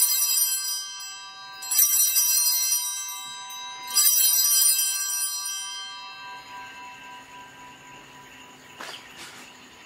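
Altar bells (Sanctus bells) rung three times about two seconds apart, each a bright, high ringing that fades slowly; the last dies away about six seconds in. Rung at the elevation of the consecrated host during Mass.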